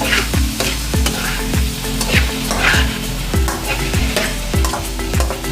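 Bite-size chicken breast pieces and minced garlic sizzling in hot oil in a pan, stirred with scraping strokes of a spatula. Background music with a steady beat plays under it.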